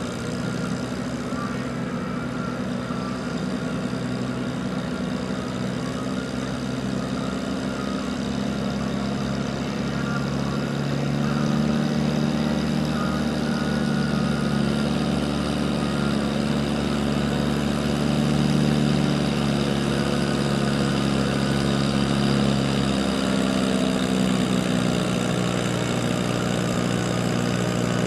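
Farm tractor's diesel engine running steadily at a constant speed, growing a little louder about ten seconds in.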